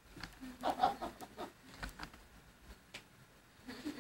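Faint, brief snatches of voices in a small room, with a few short clicks about a second in and again near three seconds.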